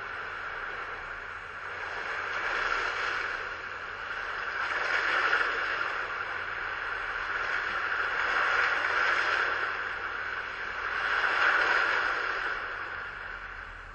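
Sea waves breaking and washing up a shingle beach, the surf swelling and falling back in four slow surges about three seconds apart.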